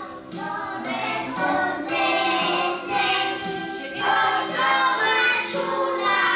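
A group of young children singing a song together on stage, in held notes with short breaks between phrases.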